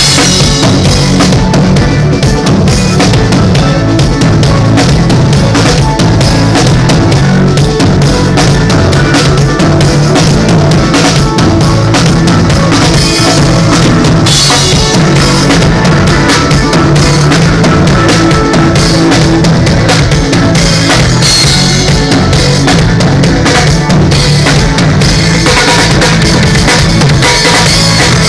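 Loud amplified music with a heavy drum-kit beat and a strong bass line, played at full volume.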